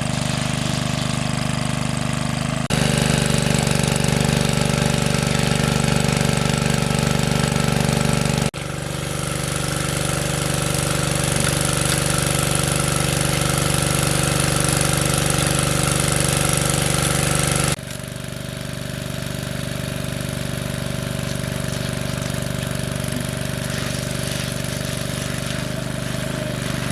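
Small engine of a water pump running steadily. The sound jumps abruptly in level and tone about three seconds in, again near nine seconds and near eighteen seconds.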